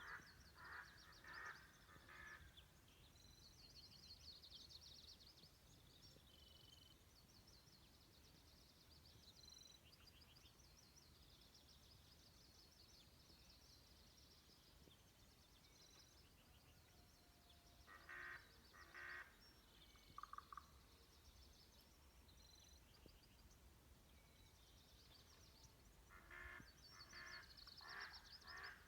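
Faint morning birdsong: several small birds chirping and trilling, with rapid high trills throughout and a few louder bursts of calls now and then.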